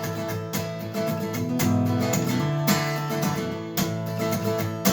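Instrumental music: an acoustic guitar strummed in a steady rhythm, with no singing.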